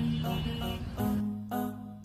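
Background music: plucked notes struck at an even pace over held low bass notes.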